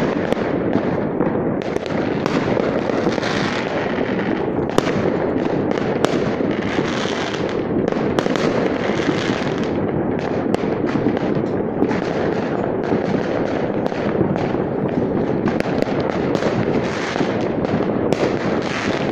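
Many fireworks going off at once: a continuous barrage of overlapping bangs and crackling, with no pause.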